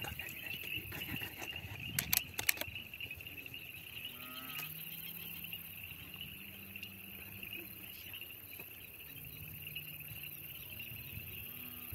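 Steady high chirring of crickets at night, with a few sharp clicks about two seconds in and two low, drawn-out calls in the distance.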